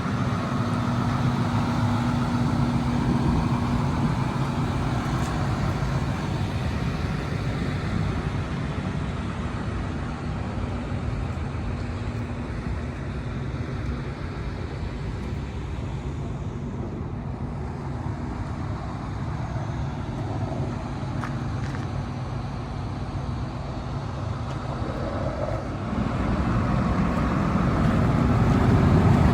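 Isuzu diesel engine of a Link-Belt 355X4S excavator running steadily, growing louder near the end.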